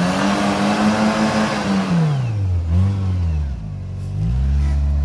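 Suzuki Samurai's engine revving hard as it crawls through a muddy rut, with tyre and mud noise while the revs are high. About two seconds in the revs fall away, blip once more, drop low, then rise again near the end.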